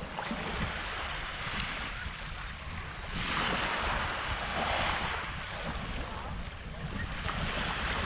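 Small waves lapping and washing up onto a sandy shore, the wash swelling about three seconds in and again near the end, with a low wind rumble on the microphone.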